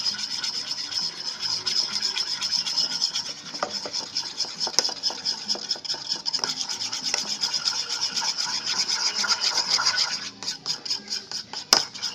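A stirrer scraping round and round a plastic container while mixing a glue-based slime mixture: quick, continuous rubbing strokes that slow to separate strokes near the end, with one sharp click.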